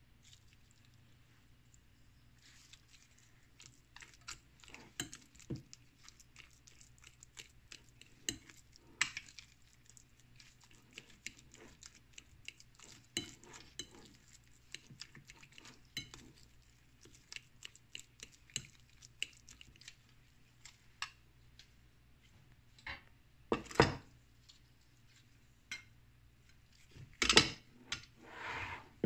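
Kitchen utensils clinking and tapping against bowls and dishes in many scattered light knocks, with two louder clatters late on.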